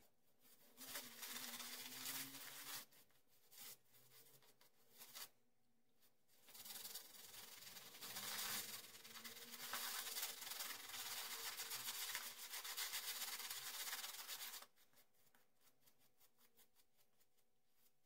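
Omega Hi-Brush synthetic shaving brush scrubbing lather onto a stubbled face: a faint, brushy rubbing. It comes in a short stretch near the start and a longer one of about eight seconds, and stops a few seconds before the end.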